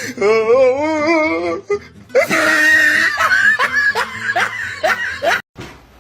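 Laughter: a wavering, drawn-out vocal sound, then a run of short pulses of laughing that stops abruptly about five and a half seconds in.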